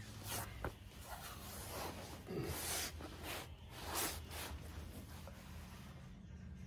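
Rustling and scraping handling noises, about half a dozen short bursts, as a person shifts around crouched close by: clothing brushing and things being moved.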